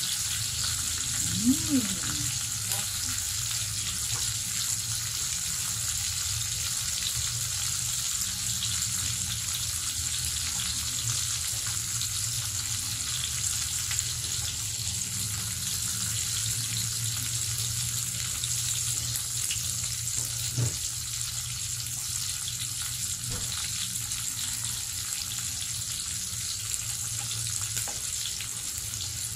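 Pork belly and ham slices sizzling in a double-sided grill pan: a steady frying hiss, with a single faint click about two-thirds of the way through.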